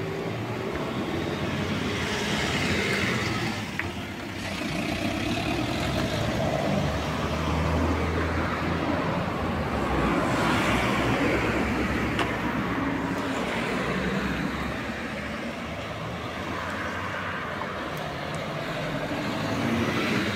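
Road traffic: motor vehicles passing, the noise swelling and fading a few times.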